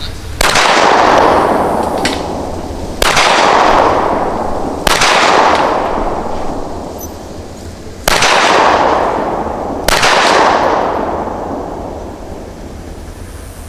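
Five shots from a Smith & Wesson M&P 9mm pistol, fired one to three seconds apart, each crack followed by a long echoing decay, with a fainter click about two seconds in.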